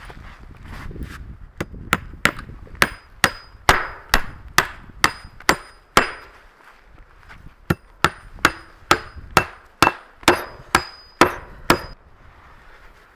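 Hammer blows, about two a second, each followed by a short metallic ring, about twenty strikes in all with one short pause midway.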